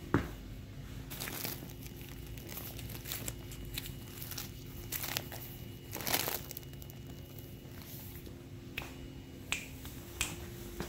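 Deflated vinyl inflatables being handled, crinkling and rustling in scattered bursts with sharp clicks, the sharpest right at the start and another strong one about six seconds in, over a faint steady hum.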